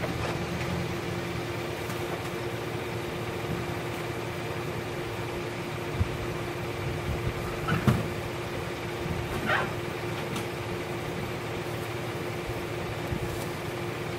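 A machine running with a steady, even hum. Around the middle come a few short knocks and one brief wavering squeal.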